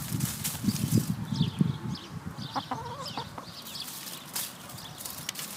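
Domestic hen clucking in short low notes, then giving a brief wavering call about two and a half seconds in. Small birds chirp faintly behind it.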